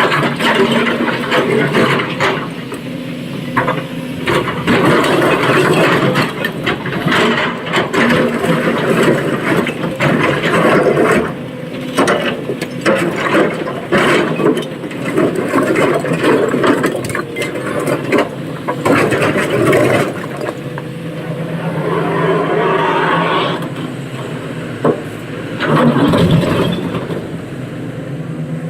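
SANY SY225 excavator's diesel engine working under load, with repeated clattering knocks of rock and metal, as when loading stone into a dump truck.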